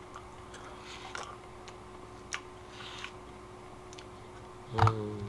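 Quiet eating sounds of ice cream taken from a spoon: small mouth clicks and smacks, spaced a second or so apart. About five seconds in comes a short hummed vocal sound.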